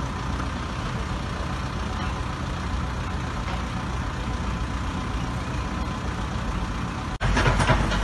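Diesel engine of a Caterpillar 416E backhoe loader running steadily close by. About seven seconds in the sound drops out abruptly for an instant and comes back louder.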